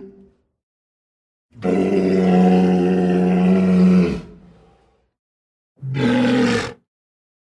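Walrus bellowing: one long, steady-pitched call lasting about two and a half seconds, then a short call of about a second, with dead silence between them.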